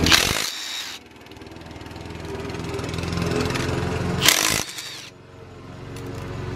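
Power tool run in two short bursts, one at the start and one about four seconds in, over a steady machine hum that dips after each burst and builds back up, while fasteners are taken off a Honda B20 engine block being torn down.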